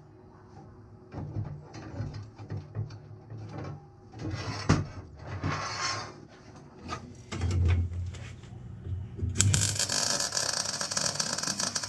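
Steel pieces knocking and scraping on a steel workbench as they are handled and set in place. Near the end, an arc welder starts crackling steadily and runs for about three seconds as a weld is laid on the steel plate.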